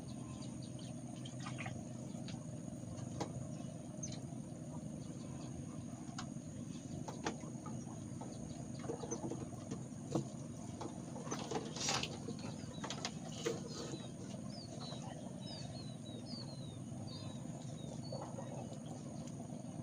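Outdoor ambience: a steady low rumble and a thin high steady tone, with scattered small clicks and knocks. About two-thirds of the way through comes a quick series of short, high, downward bird chirps.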